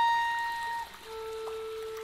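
Solo clarinet: a long high note fades away and stops just under a second in, then a soft, lower note begins about a second in and is held.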